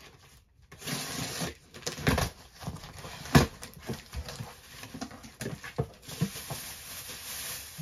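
Cardboard box and packaging being opened and handled: rustling and scraping with many sharp knocks, the loudest about three and a half seconds in.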